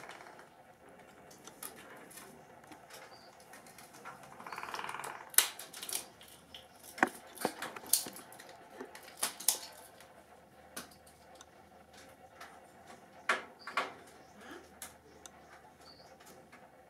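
A scatter of sharp, irregular clicks and taps, the loudest about five seconds in and another cluster near the end, with a short rustle just before the first cluster.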